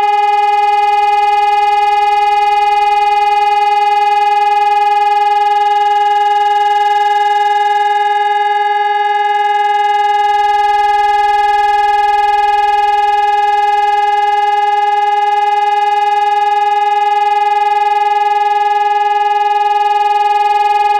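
High-performance electronic civil-defence siren sounding the all-clear (Entwarnung) signal: one loud, unbroken steady tone with no rise or fall.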